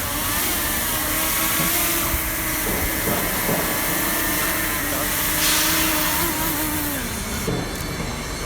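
Quadcopter drone hovering close, its propellers giving a steady hum and hiss with a slightly wavering pitch that drops about six seconds in as it is brought down to land on a hand.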